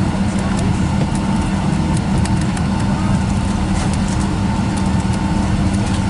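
Boeing 757-200's Rolls-Royce RB211 turbofans at taxi idle, heard inside the cabin: a steady low drone with a constant whine above it.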